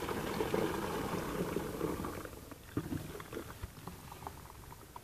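Foamy fertiliser solution poured from a plastic bucket into a plastic knapsack sprayer tank: a splashing pour that dies down about two seconds in, followed by a few light knocks.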